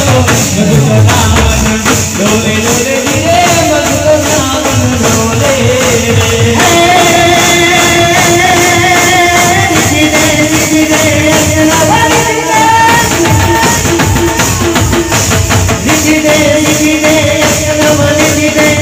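Live Indian devotional bhajan music, loud: a keyboard holds a melody over drums, while many brass hand cymbals clash in a steady beat and voices sing. A low falling swoop sounds in the first second or two.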